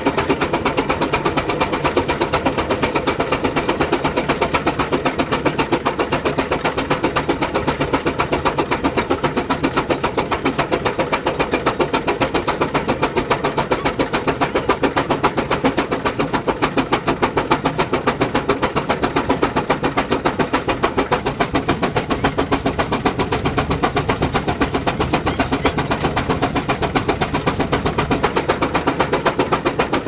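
Steam ploughing engine working, its exhaust beating in a steady, rapid chuff of about four beats a second.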